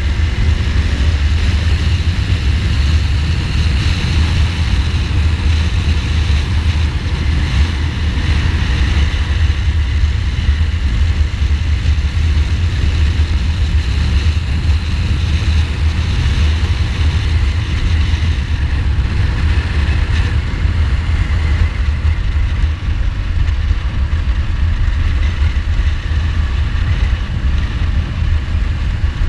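A 2015 Ducati Multistrada's V-twin engine running steadily under way, mixed with a low, even rumble of wind on the microphone and road noise.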